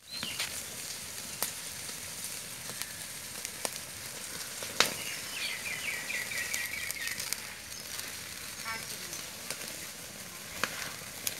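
Chicken pieces sizzling on a wire grill rack over an open wood fire, with the fire crackling underneath and a few sharp pops, the loudest about five seconds in.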